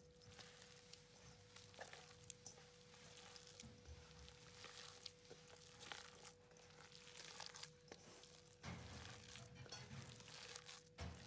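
Hands squeezing and kneading raw ground meat with yellow split peas and herbs in a stainless steel pot: faint, irregular squishing, a little louder near the end, over a faint steady hum.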